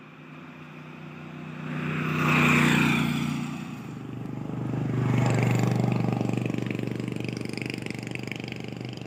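Two motor vehicles passing one after another on a road. The first grows loud and fades within a couple of seconds. The second swells about five seconds in and slowly dies away, with a steady engine hum.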